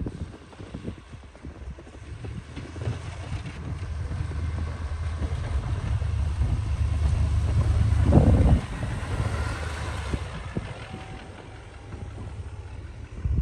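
A vehicle or machine engine running with a low rumble that grows louder, peaks about eight and a half seconds in, then drops off suddenly, with wind on the microphone.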